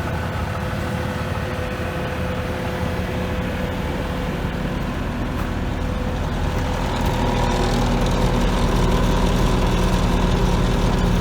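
Bobcat S650 skid steer's diesel engine running steadily, growing louder about seven seconds in.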